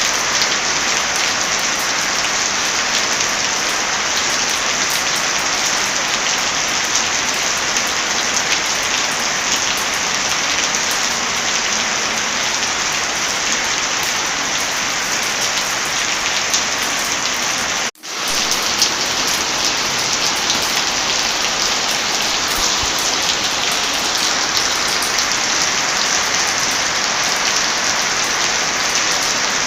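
Heavy rain falling steadily, a dense even hiss of drops. About 18 seconds in it cuts out almost completely for a split second, then picks up again at once.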